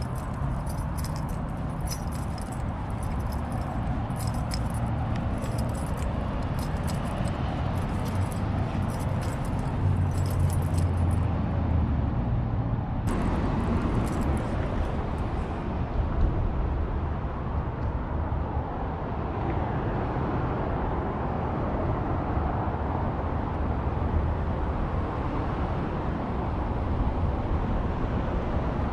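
Steady road traffic noise with a low rumble, vehicles running continuously. Light jingling rattles over it in the first half, fading out about halfway through.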